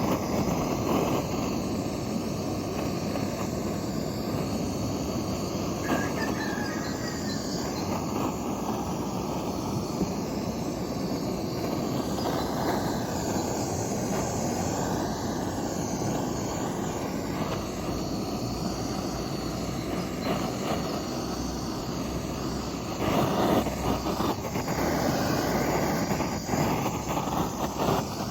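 A woodworking power tool running steadily while working the wood, with a louder stretch near the end.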